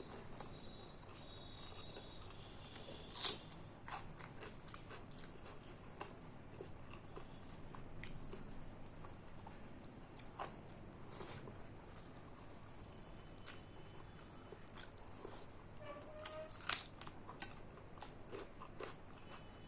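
Close-up eating sounds: a person chewing and biting food, with soft irregular mouth clicks and smacks and a few sharper clicks about 3 and 17 seconds in.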